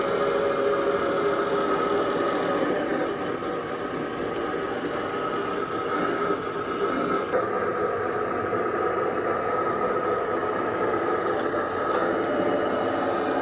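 Radio-controlled Bruder D11 bulldozer conversion running, its installed sound module playing a steady diesel engine sound over the whir of its drive motors.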